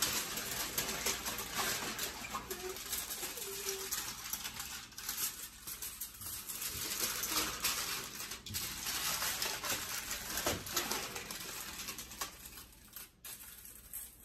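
Aluminium foil crinkling and crackling as it is folded and crimped shut over a baking pan, thinning out near the end.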